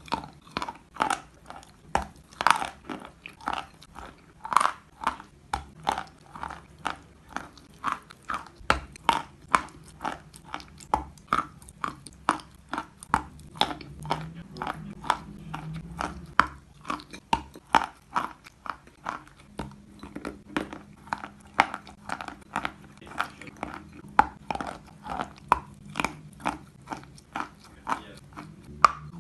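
Close-up chewing of hard chalk: a steady run of dry crunches, about two or three a second.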